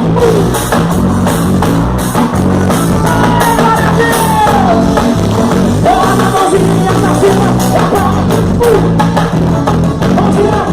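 Forró band music: a stepping bass line and steady percussion under a gliding lead melody.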